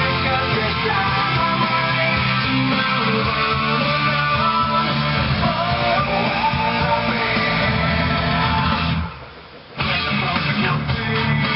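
Background music led by guitar, with a steady low bass line; it drops out briefly about nine seconds in, then comes back.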